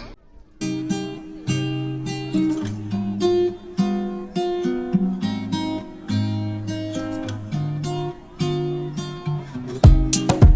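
Background music: an acoustic guitar playing a plucked melody, with loud drum hits coming in near the end.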